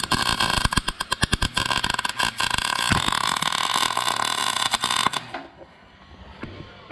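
MIG welder arc crackling as a weld is run on a steel frame rail, a steady frying crackle full of sharp pops that cuts off about five seconds in.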